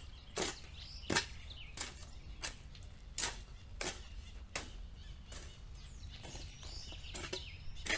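A long-handled yard tool scraping across bare dirt ground in repeated strokes, about one and a half a second, as the yard is swept.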